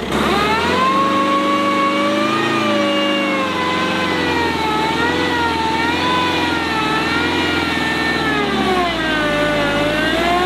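Tata Harrier's 2.0-litre four-cylinder turbo-diesel engine revving under load as the SUV is driven through sand. The revs climb at the start, hold and waver, sag about nine seconds in, then rise again near the end.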